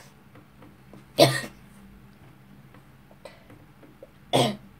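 A person coughing twice: one short cough about a second in and another near the end.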